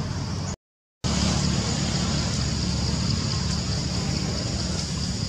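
Steady outdoor background noise: a low even rumble under a steady high hiss. It drops out to silence for about half a second shortly after the start, then resumes unchanged.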